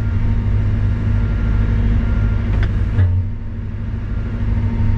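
Caterpillar wheeled excavator's diesel engine running steadily, heard from inside the cab while the boom and bucket are worked. There is a short knock about three seconds in, and the engine hum eases for a moment after it.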